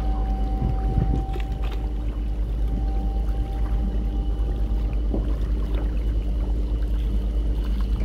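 Passenger catamaran's engines running steadily while moored alongside the quay: a constant low drone with a steady hum of several even tones above it.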